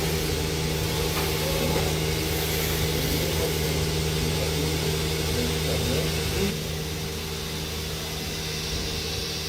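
Dairy milking machinery running with a steady mechanical hum. The level drops a little about six and a half seconds in.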